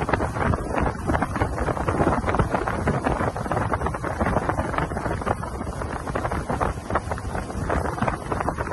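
Wind buffeting the microphone and water rushing past the hull of a small fishing boat under way, a dense, gusty noise with no clear motor tone.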